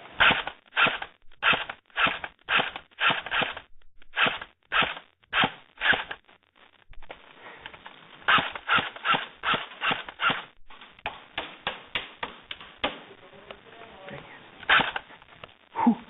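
Airsoft guns firing single shots in quick succession, about two or three a second. There are two long strings of shots with a pause of about two seconds between them, then weaker shots.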